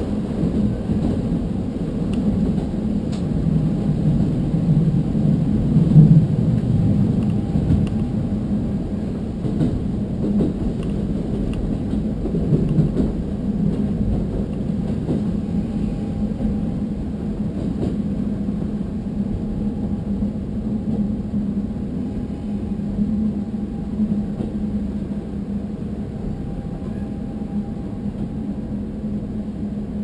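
Diesel railcar heard from inside the passenger cabin: a steady low engine hum over rail and running rumble. The sound eases off over the second half as the train slows for a station stop.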